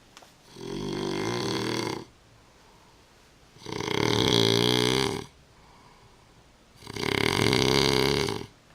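A man snoring loudly, three long snores about three seconds apart, each one a rattling, buzzing breath.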